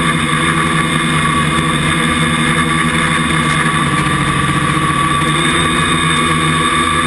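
Small camera drone's motors and propellers running with a steady, many-toned whine, heard close-up through its onboard camera; the pitch shifts slightly about four seconds in.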